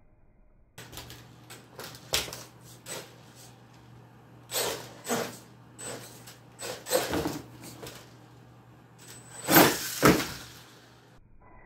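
Brushless electric motor of a Venom Mini Giant RC monster truck whirring in short throttle bursts as it drives on a tile floor. The loudest pair of bursts comes near the end, as the truck launches over a cardboard box ramp.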